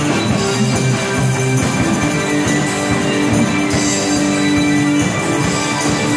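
A live rock band playing: electric guitar through an amplifier with electronic keyboard, notes held and changing steadily.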